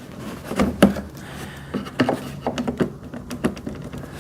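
Wood chipper stand pieces being handled and fitted together by hand: a scatter of light knocks, clicks and rubbing.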